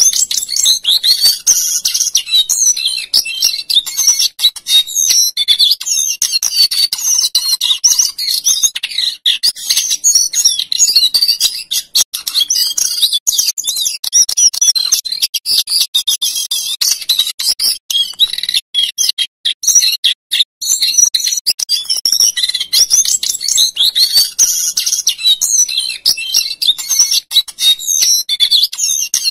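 Male jongkangan coklat (cingcoang cokelat, a shortwing) singing a long, fast, nearly unbroken warbling song of rolling trills and whistled notes, with a short pause about two-thirds through.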